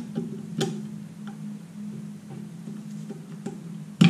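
Sparse small metallic clicks and taps from a 2002 Honda Accord drum brake's hold-down spring and pin being turned and released with a hold-down spring tool, with a sharper click near the end, over a steady low hum.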